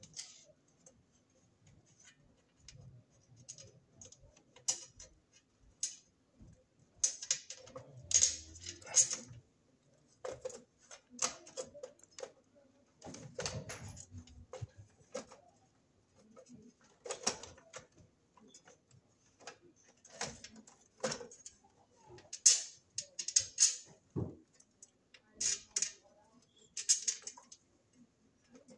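Metal breaker-panel cover being fitted onto an old panel box: irregular clicks, taps and short scrapes of sheet metal against the box as it is shifted and lined up.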